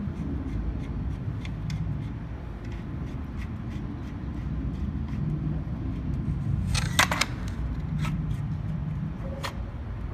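Light clicks and taps of metal parts being handled and adjusted on a labeling machine's label box, over a steady low hum. A quick run of sharper clicks comes about seven seconds in, with single clicks just after.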